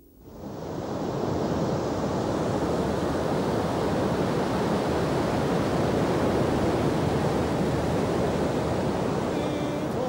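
Heavy sea surf: waves breaking and washing in a steady rush of noise that fades in over the first second.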